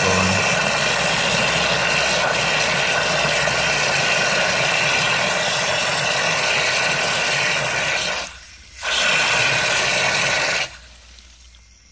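Float valve refilling a rusty cast-iron STOM Cardiff 146 cistern: water jetting into the tank with a loud hissing rush and a steady whistle. It drops out briefly about eight seconds in, then shuts off almost completely near the end.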